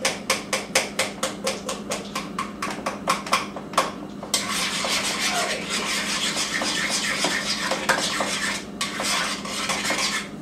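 A spoon mashing and stirring a softened cream cheese mixture in a large mixing bowl. It gives quick repeated taps against the bowl, about five a second, for the first four seconds, then changes to continuous scraping and stirring.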